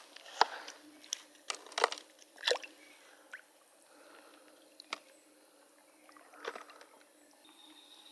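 Shallow river water splashing and dripping in short, irregular splashes, several in quick succession early on and a few sparser ones after. A steady high insect trill sets in near the end.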